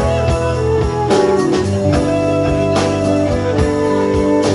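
Live rock band playing an instrumental passage: electric guitar, bass guitar, a Tama drum kit and a Nord Electro keyboard holding long notes, with steady drum hits.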